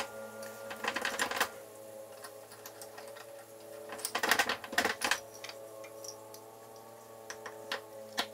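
Quick runs of sharp metal clicks and rattles from a Craftsman 3 1/2-inch bench vise being worked by hand, about a second in and again around four to five seconds, over soft background music with held notes.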